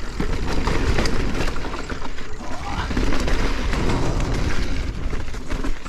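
Mountain bike ridden over a rough dirt trail: a steady low rumble of wind and tyre noise with the rattle and knock of the bike over bumps.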